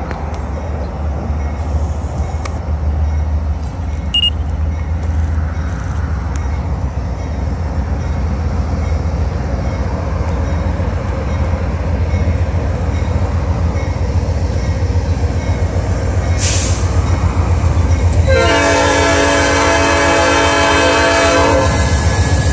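Norfolk Southern freight train's diesel locomotives approaching, their engines a steady low rumble that slowly grows louder. About eighteen seconds in, the lead locomotive blows its horn: a long, loud chord of several notes held for about four seconds.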